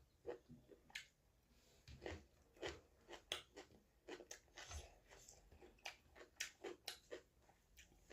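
A person chewing food close to the microphone: short crunchy clicks at an uneven pace, two or three a second.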